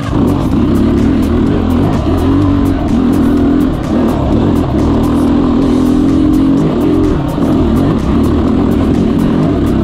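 SWM enduro dirt bike engine running under way at moderate revs, heard close up on board. The revs waver with the throttle and dip briefly a few times.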